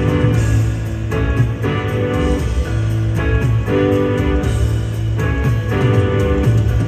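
Live band playing: electric guitar and keyboard chords over a steady bass line, the chords changing about once a second.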